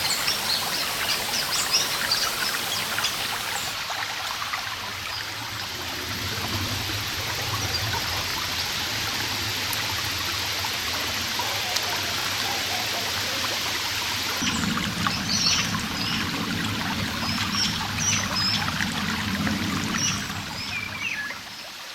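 Steady running water of a stream, with birds chirping and trilling over it in the first few seconds and again through the second half. The water sound changes abruptly twice, becoming deeper and fuller about halfway through, and the level drops near the end.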